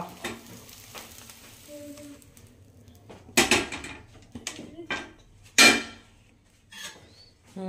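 Perforated steel spatula clanking against a stainless steel plate as a cooked omelette is slid onto it: sharp metal strikes about three and a half and five and a half seconds in, with lighter knocks in between.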